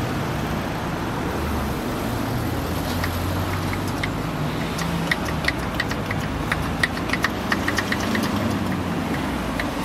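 Steady low rumble of an idling engine, with a run of sharp light clicks from about three seconds in as the hand primer on the Scania 112's diesel injection pump is worked to bleed air from the fuel line.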